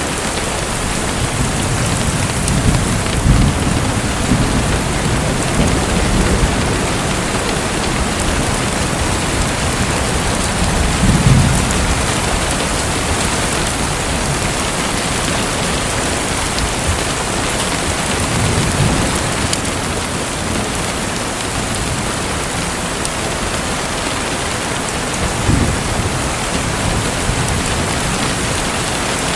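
Steady hiss of falling or splashing water, like heavy rain, with a few brief low rumbles swelling up every several seconds.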